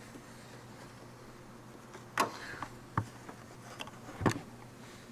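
A few sharp clicks and knocks from hands working a wiring harness and its plastic parts, the loudest about two seconds in and again just after four seconds, over a faint steady hum.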